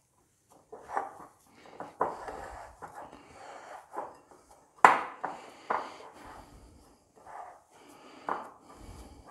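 A hand kneading and squishing a mashed potato, onion and spice mixture in a glass bowl, in irregular wet rustles with light knocks against the bowl. One sharper knock about five seconds in.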